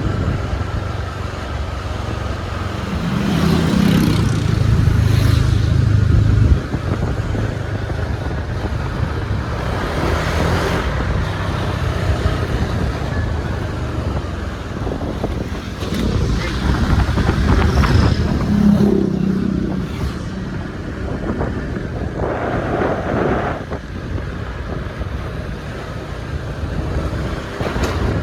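Motor scooter ride: the engine and road noise run on under wind buffeting the microphone, which swells and fades in gusts.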